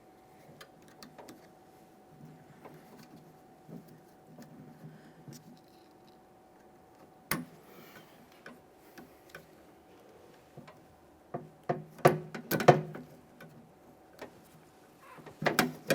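Light clicks and rattles of the metal door-latch rods and plastic interior door handle being handled and fitted, with a cluster of louder sharp clicks and knocks about twelve seconds in and again near the end.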